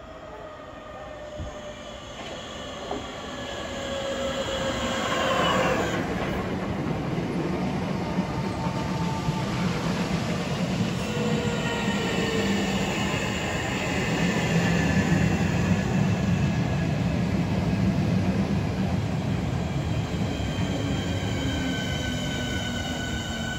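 Southeastern electric multiple unit running past close to the platform. Its motor tones sweep down in pitch together about five seconds in, then the wheels rumble along the rails, and near the end the tones climb.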